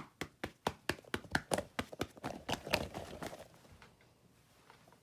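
Rapid series of hand slaps or pats, about four a second, fading out after about three and a half seconds.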